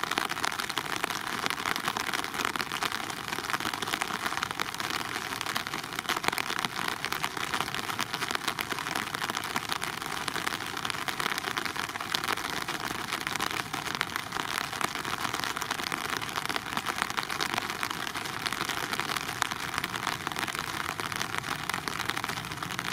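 Steady rain, a dense even hiss with fine crackling drops; no engine or propeller sound stands out above it.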